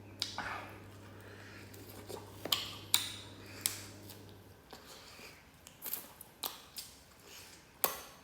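Close-up eating sounds of spicy duck wing middles: a series of sharp clicks and crunches as the wings are bitten and chewed, spread irregularly across several seconds. A faint low hum stops about halfway through.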